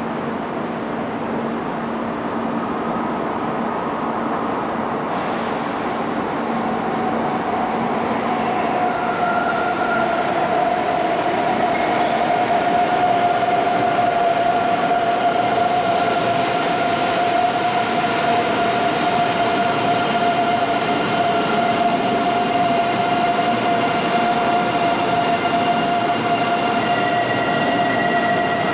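A Shinkansen train pulls slowly in on the adjacent track, its running noise building over the first ten seconds or so and then holding. Over it run a steady high whine and squeal.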